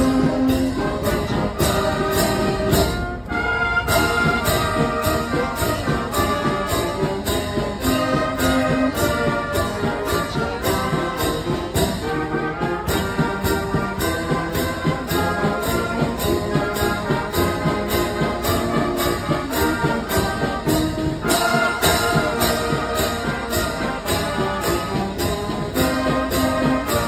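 Street brass band playing a march, with tuba, French horn, trombones, trumpets and saxophones sounding sustained chords over a steady beat of about two strokes a second, marked by hand cymbals.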